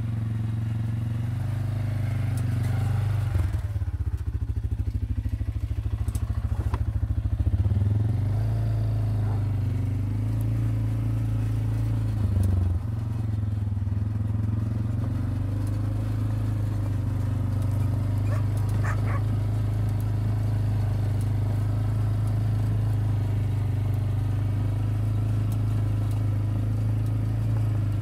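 Quad bike (ATV) engine running as it drives along, a steady low engine note. The note roughens and climbs a few seconds in, then dips briefly a little before halfway before settling back to a steady run.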